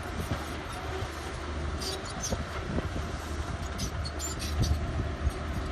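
Excavator's diesel engine running steadily, a low drone with a few faint metallic clicks.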